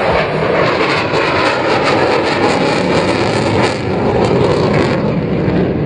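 Display jet fighter passing in front of the crowd with its landing gear down: a loud, steady rush of jet engine noise that eases a little near the end.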